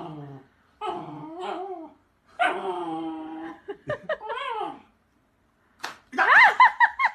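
A dog whining in several drawn-out cries that bend up and down in pitch, then a quick run of high yips near the end.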